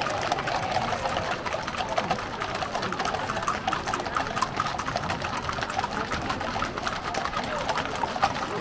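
Hooves of many horses clip-clopping at a walk on a paved street, a dense run of overlapping hoof strikes, with crowd chatter underneath.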